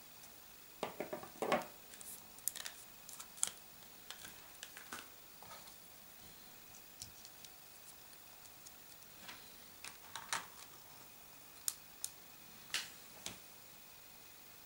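Plastic blister packaging crackling and clicking as it is cut and pried open to free a microSD memory card, loudest about a second in, followed by scattered sharp clicks of the small card and its packaging being handled.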